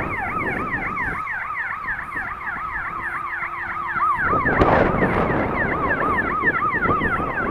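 An electronic siren in a fast yelp, rising and falling about five times a second without a break, over low wind rumble that gets louder about four and a half seconds in.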